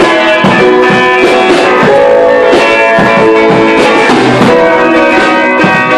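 Loud live instrumental jamming, with a Yamaha electronic keyboard playing a dense run of sustained chords and notes.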